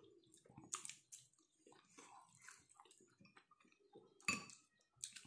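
Faint chewing while eating a chicken momo dumpling, with small soft mouth and hand sounds. About four seconds in, a sharp clink as a ceramic spoon touches the soup bowl.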